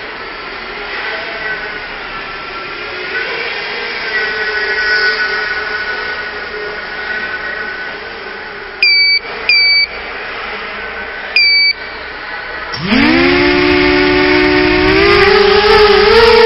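Quadcopter motors whining faintly with wavering pitch, broken by three short, sharp beeps; about thirteen seconds in the motors spin up hard, a loud whine that rises steeply in pitch and then holds high.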